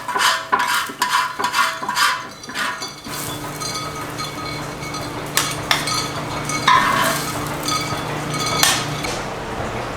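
Metal utensil stirring and scraping food on a cast-iron cauldron-lid pan, a quick run of strokes for about the first three seconds, then a steadier background with a few sharp clinks.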